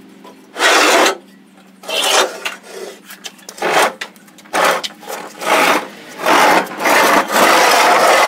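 Riding-mower deck scraping and dragging across a concrete floor as it is pulled out from under the tractor: a series of about seven rough scrapes, each under a second, the last one longer.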